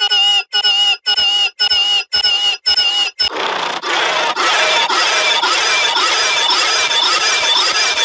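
Digitally pitch-shifted, layered audio effect: a high, squealing tone chopped into short repeated pulses about twice a second. About three seconds in it gives way to a dense, shrill wash of many pitch-shifted copies stacked on top of each other.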